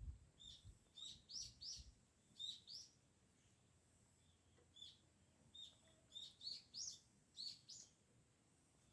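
Small birds chirping faintly: short high chirps in quick clusters, a pause of a couple of seconds between groups.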